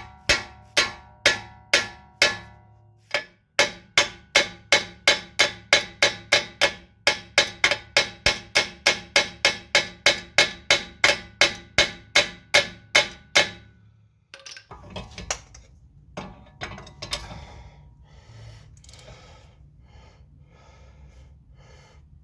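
Steel hammer blows at about three a second, each ringing like metal, striking a semi-seized brake caliper slide pin to shock it loose. The hammering stops about two-thirds of the way through, and quieter, irregular metallic clinks and rattles follow.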